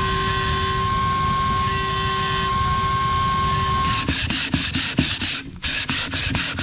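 Die grinder whining steadily at one pitch as it cleans up the bolt holes of a metal diff locker end cap, cutting off about four seconds in. It is followed by rapid back-and-forth scraping strokes as the cap's mating face is rubbed on a flat honing stone to take down its high spots.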